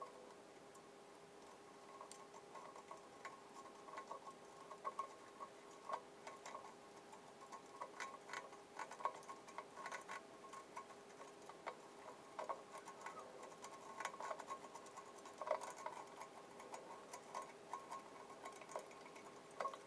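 Knife cutting and scraping cured expanding foam away from corrugated roofing-metal fins: faint, irregular scratches and small clicks over a steady faint hum.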